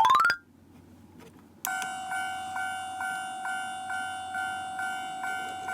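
A toy automatic railroad crossing's electronic warning bell ringing steadily as it is triggered, pulsing about two and a half times a second, starting a second and a half in. A short rising electronic chime comes at the very start.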